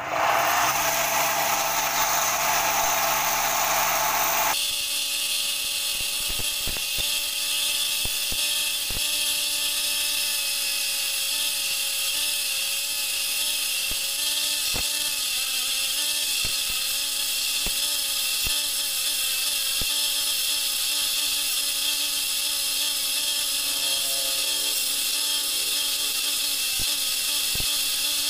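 Homemade electric wood lathe switched on and running. After a loud rush of noise for the first few seconds, the sound changes abruptly to a steady motor hum under a high hiss as a hand-held chisel cuts the spinning wood, with scattered light knocks.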